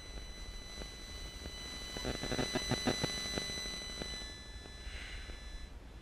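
Radio-frequency interference from a rooftop cell-site antenna breaking into the camera's audio: a steady high electronic whine of several thin tones, with a burst of rapid buzzing pulses from about two to three and a half seconds in.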